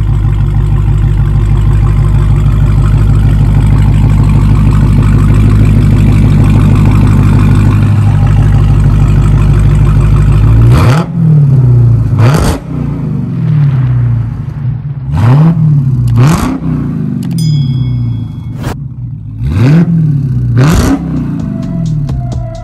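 Dodge Charger Hellcat's supercharged 6.2-litre Hemi V8, breathing through a 3-inch cat-back exhaust with Rich's Race Demon mufflers, idles steadily for about ten seconds. It is then blipped in three pairs of quick revs, each rising sharply and falling back to idle.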